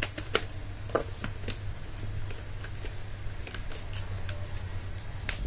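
Hands working at a taped cardboard parcel: scattered scratches, taps and clicks of a knife and fingers on the packing tape and box, over a steady low hum.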